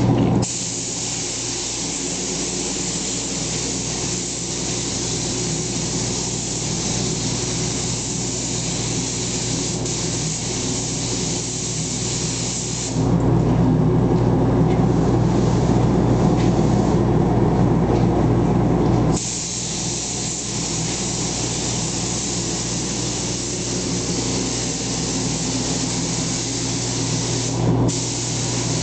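Gravity-feed paint spray gun hissing steadily as it sprays paint, over a steady low hum. The hiss stops for about six seconds in the middle, while the hum is louder, then starts again.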